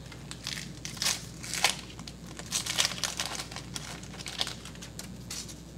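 Foil wrapper of a football trading card pack crinkling in many short crackles as it is torn open by hand and the cards are pulled out.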